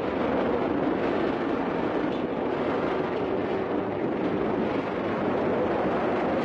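Film sound effect of a large fire burning in a tunnel: a loud, steady rushing noise.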